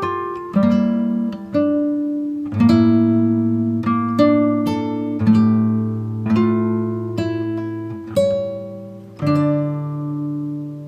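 Background music: acoustic guitar chords plucked and strummed, each ringing out and fading before the next, about one a second.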